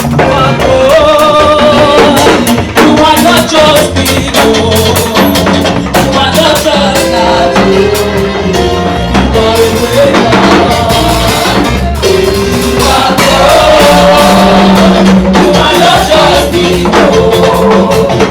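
Loud, upbeat gospel praise music: voices singing over a drum kit and steady beat.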